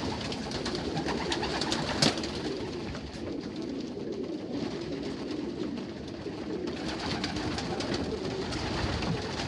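Many young racing pigeons cooing together in the loft, a continuous murmur, with one sharp knock about two seconds in.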